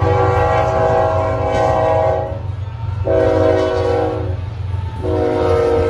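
Diesel freight locomotive's multi-chime air horn blowing: a long blast, a shorter one, and a third starting about five seconds in. Under it runs the steady low rumble of the passing train.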